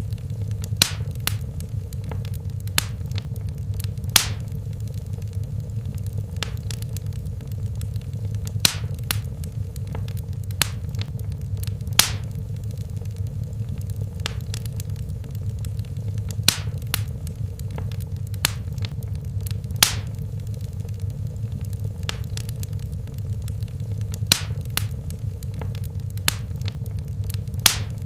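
Wood fire burning in a fireplace: a steady low rumble of the flames, with irregular sharp crackles and pops about once a second, a few of them louder than the rest.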